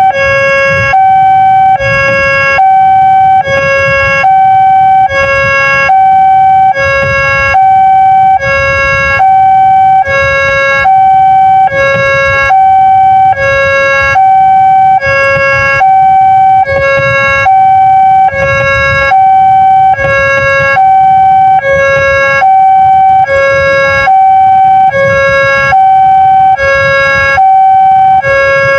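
Railway level-crossing warning siren sounding a loud electronic two-tone alarm, a higher and a lower tone alternating about once a second.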